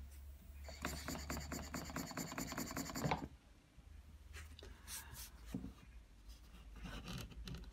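Stuart Turner 10H model mill engine running on compressed air: a rapid, even chuffing of air exhausting with each stroke, with a thin hiss, which cuts off about three seconds in. Light handling and rubbing sounds follow as the engine is taken in hand.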